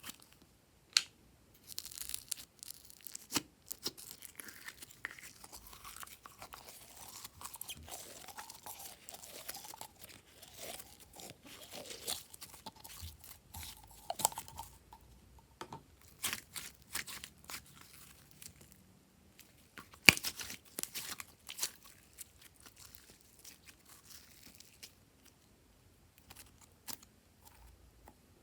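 Glossy slime being stretched, squeezed and folded by hand, with irregular sticky pops, crackles and clicks.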